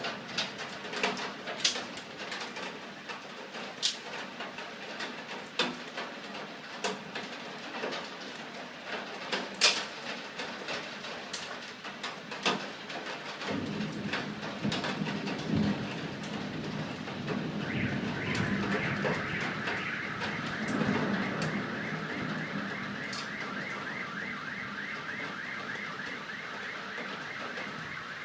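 Thunderstorm: scattered sharp taps, then a low rolling rumble of thunder begins about halfway through. A few seconds later a car alarm starts up, a fast repeating electronic tone that keeps going to the end.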